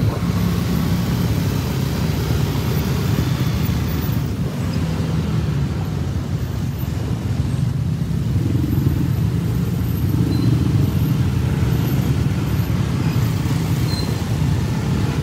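Engines of a group of small motorcycles and scooters running steadily as they ride along together, a continuous hum from the vehicles moving through the street.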